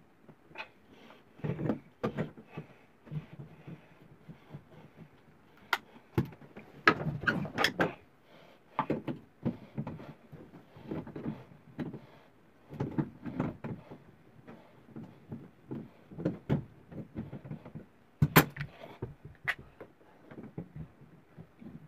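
Hand tools and the metal parts of a shower faucet valve being handled: irregular clicks, knocks and short scrapes, with the loudest knocks about a third of the way in and again near the end.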